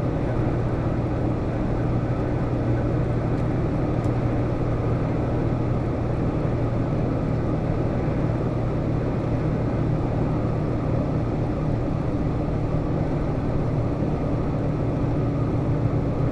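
Steady drone inside a lorry's cab as it cruises at about 45 mph: the diesel engine's low hum mixed with tyre and road noise.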